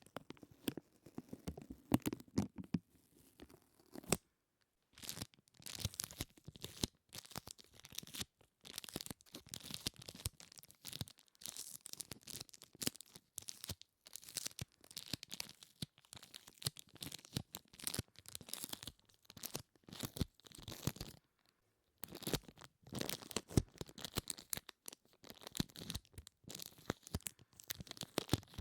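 Sticky material being pressed and peeled apart close to the microphone, giving irregular crackly, tearing sounds in stretches of a few seconds with two brief pauses.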